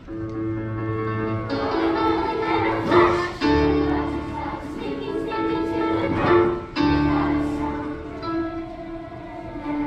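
Children's school choir singing with instrumental accompaniment that has held bass notes. Two sharp, loud hits come about three and six seconds in.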